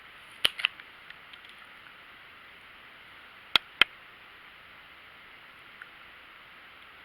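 Two pairs of sharp clicks about three seconds apart, with a few faint ticks after the first pair, over a steady hiss.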